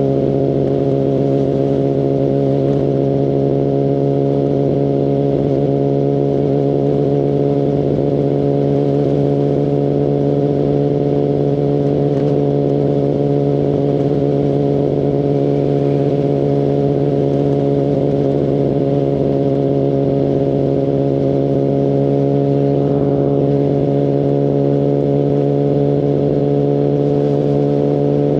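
Kawasaki Ninja ZX-10RR's inline-four engine, breathing through an Akrapovic Evolution carbon full exhaust system, running at a steady, unchanging engine speed with no revving.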